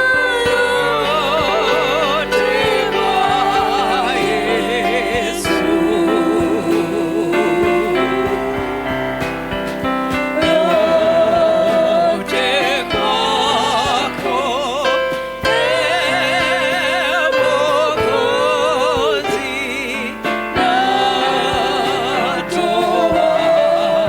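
Gospel worship song: a singer holding long notes with wide vibrato over sustained instrumental chords.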